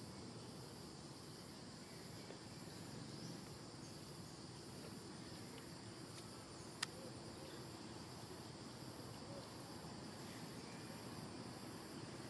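Faint outdoor ambience of insects: a high chirp pulsing evenly a little over once a second over a steady insect hum and a low background rumble. A single sharp click about seven seconds in.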